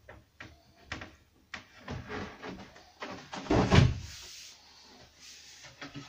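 Wooden desk top being handled and tilted out of an alcove: a run of knocks and scuffs as the board bumps and scrapes, with one heavy thump a little past halfway.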